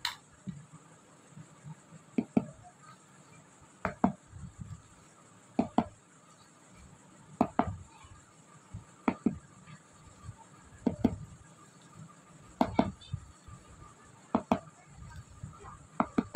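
Metal wire whisk knocking against the side of an enamel mixing bowl as flour is folded into cake batter: short clinks about every two seconds, some in quick pairs.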